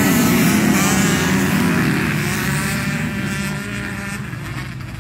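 A pack of motocross bikes accelerating away from the start, many engines revving high together with pitches rising as they pull through the gears, the sound fading as the field moves off down the track.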